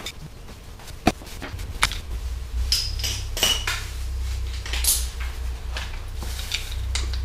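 Metal hand tools clinking and clattering as they are sorted through and picked up: a few sharp clicks, then a run of jingling metallic rattles, over a low hum.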